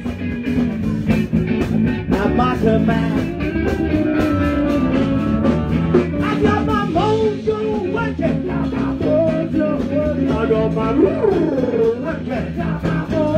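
Live blues-rock band playing an instrumental break: a harmonica played into the vocal microphone, its notes bending and wavering, over electric guitar, bass and a drum kit keeping a steady beat.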